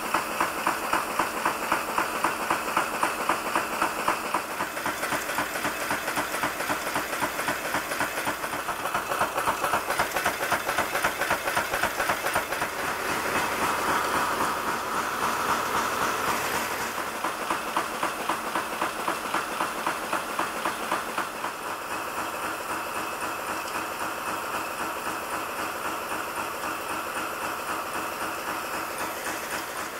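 Nail-making machine running at production speed, a rapid, even run of strokes as it forms steel nails from wire. For a few seconds about halfway through the strokes soften into a steadier hiss.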